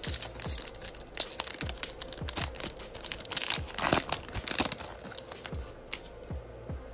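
Foil baseball-card pack wrapper crinkling and tearing as it is peeled open by hand and the cards are slid out. The crackling dies away in the last second or so. Background music with a steady low beat plays underneath.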